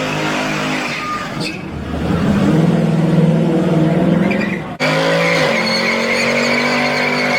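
Car engine held at high revs with tyres squealing on the tarmac. The sound breaks off abruptly about five seconds in and picks up again just as loud.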